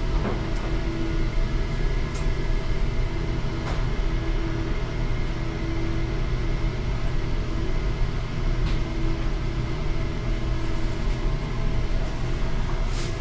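Steady low rumbling hum of indoor machinery, such as ventilation fans and kitchen equipment, with a humming tone that fades in and out and a few faint clicks.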